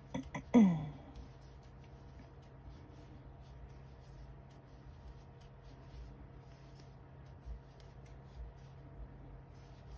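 Soft rustling and small scratches of a metal crochet hook drawing cotton yarn through stitches. About half a second in, a short vocal sound falling in pitch stands out as the loudest moment, and a steady low hum runs underneath.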